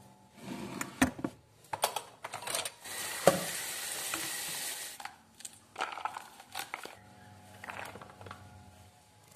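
Kitchen tap water running onto corn cobs and spring onions in a plastic colander in a stainless-steel sink: a steady hiss of about two seconds, with knocks and clatters of the colander being handled before it. Near the end come lighter rustles and scrapes, as cut carrots are slid off a wooden board into a bowl.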